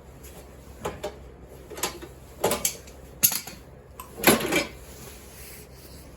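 Metal parts and tools clanking and knocking during mower reassembly: about six separate sharp clatters, the loudest two near the middle.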